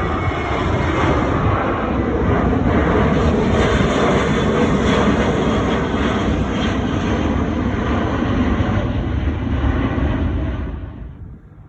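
Jet airliner engines at takeoff thrust: a loud, steady rumble and roar that drops away sharply near the end.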